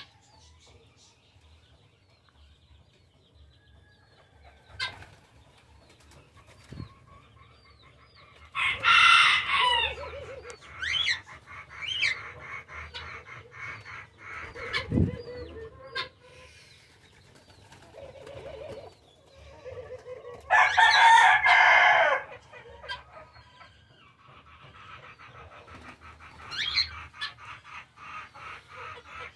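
A rooster crowing twice, about nine seconds in and again about twenty-one seconds in, with hens clucking between and after the crows.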